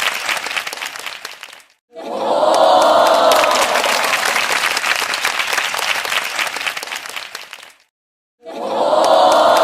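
Audience applause with crowd cheering swelling up at the start of each burst. It fades out to silence about two seconds in, starts again with the cheer, and fades out and restarts the same way near the end, like a looped applause track.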